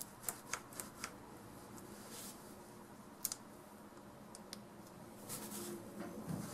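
Light clicks and taps of small parts being handled and fitted together: a quick run of four in the first second, then a few scattered ones, with a couple of soft rustles.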